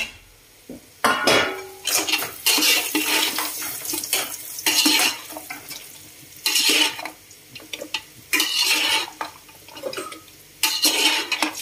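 Metal spatula scraping and clattering against an aluminium cooking pot as chicken and carrots are stirred, in repeated bursts about every one to two seconds, with carrots tipped in from a steel plate near the start.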